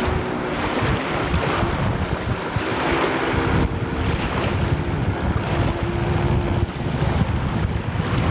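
Wind buffeting the microphone over the wash of water, with a jet ski's engine humming faintly underneath.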